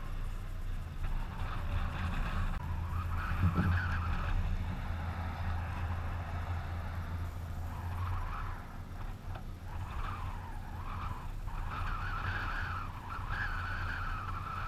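Car road noise from a vehicle moving at speed: a steady low drone from engine and drivetrain under a wavering hiss of tyres on pavement.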